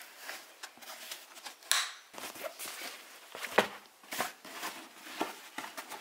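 Hands handling a Stokke stroller bag: fabric rustling and light plastic clicks. A short, brighter rustle comes a little under two seconds in.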